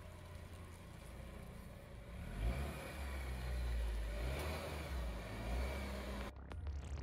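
Acura TSX four-cylinder engine running as the car moves slowly and pulls onto a driveway, growing louder about two seconds in and then holding steady. Near the end a different sound with rising and falling pitch cuts in abruptly.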